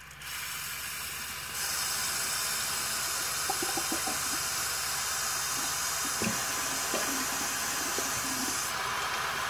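Bathroom sink tap running, water pouring into the basin in a steady rush. The flow is turned up about a second and a half in and eased back near the end.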